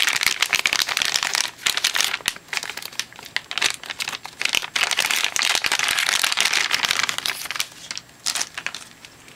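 Packaging crinkling and crackling in rapid small clicks as a cable is unwrapped by hand, dying down near the end.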